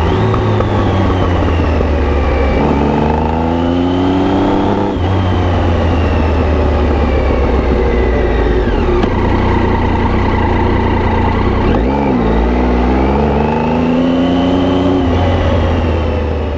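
Triumph Tiger 800 inline-triple engine through an Arrow exhaust under way, its revs climbing and dropping sharply with gear changes about five seconds in and again near twelve seconds. The sound fades out near the end.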